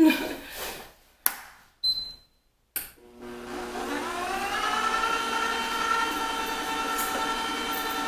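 Comfee vertical slow juicer being switched on: a few short knocks, then about three seconds in its motor starts, rising in pitch over about two seconds before settling into a steady whine.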